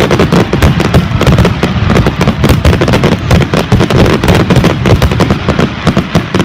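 Aerial fireworks in a dense, continuous barrage, many overlapping bangs and crackles each second with deep booming underneath, cutting off right at the end.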